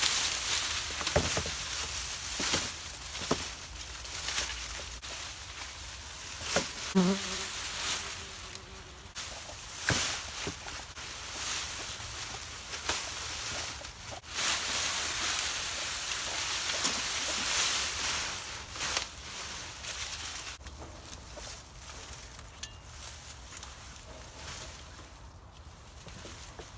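Dry corn stalks rustling and crackling as they are pulled up and gathered, with many sharp snaps and crunches.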